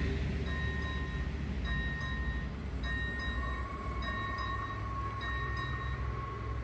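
AŽD 71 level-crossing warning bell ringing: an electronic ding repeating about once every second, with a steadier tone joining about halfway through. Under it, the low rumble of the train that has just passed fades.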